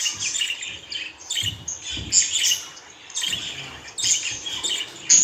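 Budgerigars chirping and chattering in short, rapid bursts with brief pauses between them. The chatter grows more continuous near the end.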